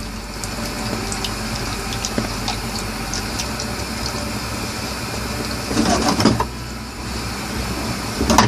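Creamy chicken sauce bubbling as it reduces in a pan on a stove, with scattered small pops over a steady low hum. There are two brief louder clatters, about six seconds in and again near the end.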